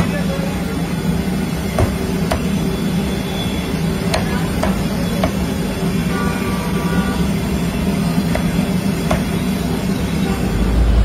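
Meat cleaver chopping charcoal-grilled chicken on a wooden chopping block: about seven sharp chops at irregular intervals over a steady background rumble.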